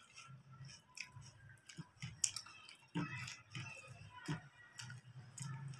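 Close-up eating sounds: chewing of chole bhature eaten by hand, with scattered short sharp clicks.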